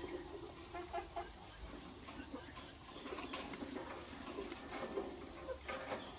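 Soft, short bird calls repeated through, with a few sharp clicks about three and a half seconds and six seconds in.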